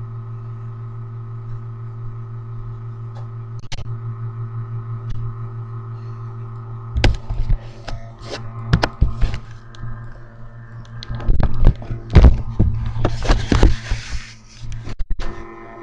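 Background music of steady held tones, with knocks, thumps and rustling from the camera being handled. The handling noise starts about halfway through and is loudest near the end.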